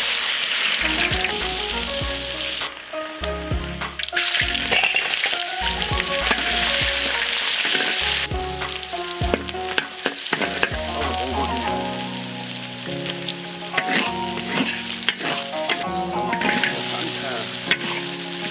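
Hot oil sizzling loudly as chopped meat fries in a wok, the sizzle surging and easing in waves, with background music underneath.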